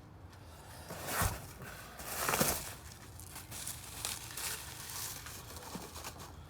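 Packing materials rustling and crinkling as a box is packed, with a short knock about a second in and a louder rasping rustle a little after two seconds.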